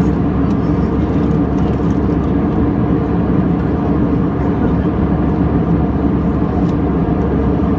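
Steady drone of an airliner cabin in flight: engine and airflow noise, with a low hum.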